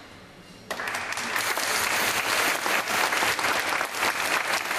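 Audience applause in an ice arena breaks out suddenly under a second in, just after the skating program's music has faded out, then carries on steadily. It greets the end of a pairs figure skating performance.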